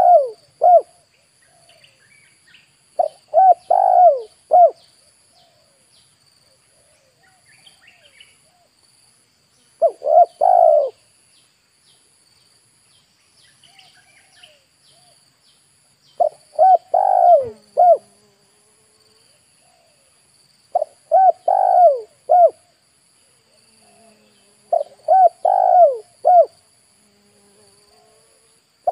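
Spotted doves cooing: phrases of three or four coos every few seconds, about six in all. Under them run a steady insect drone with a fast pulsing buzz and faint chirps of small birds.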